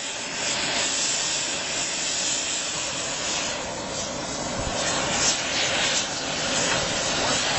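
Sawdust briquettes burning in a steady rushing hiss, with a few faint short snaps.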